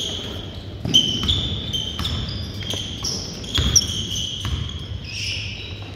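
A basketball bouncing on a hardwood gym floor, a few sharp thuds, with the loudest about a second in and about three and a half seconds in. Players' sneakers squeak on the court throughout.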